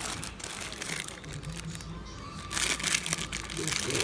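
Background music with crinkling and clicking sounds of something being handled.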